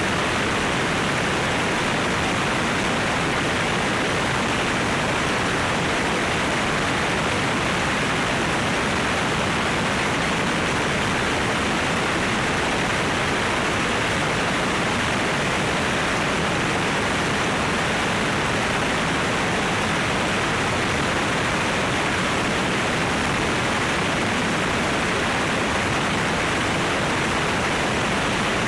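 Steady rush of wind over an externally mounted camera on a light aircraft in cruise flight: an even, unbroken hiss-like noise with no distinct engine note.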